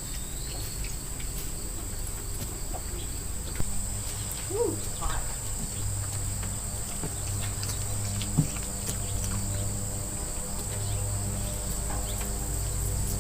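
Insects droning steadily in one high-pitched, unbroken tone, over a low steady hum, with a few faint short calls and knocks.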